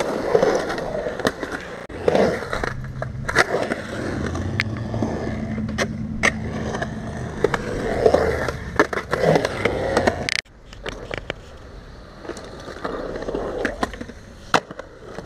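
Skateboard wheels rolling on concrete, a continuous rumble broken by sharp clacks of the board and wheels. About ten seconds in the sound cuts off suddenly, and quieter rolling with a few clacks follows.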